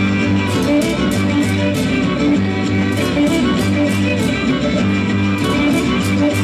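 Lively Mexican folk dance music played on guitars and violin, with a repeating bass line and sharp taps several times a second.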